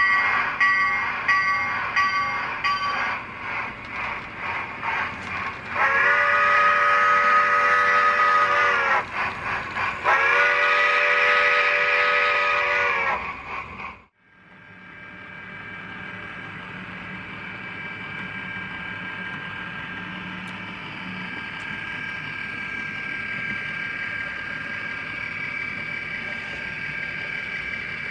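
Model train sound: a locomotive bell ringing for the first few seconds, then two long steam-whistle blasts of about three seconds each. After a sudden break, a steady diesel-locomotive engine hum that slowly grows louder.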